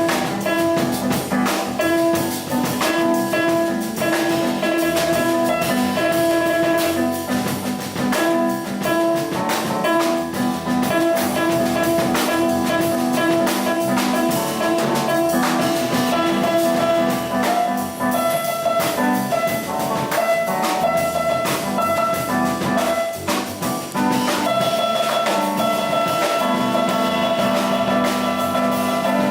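Jazz piano trio playing: piano over double bass and drum kit, with frequent cymbal strokes.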